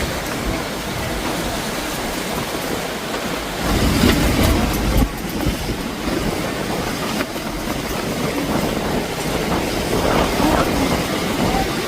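Steady rumble and rattle of a moving vehicle, with a louder low surge about four seconds in.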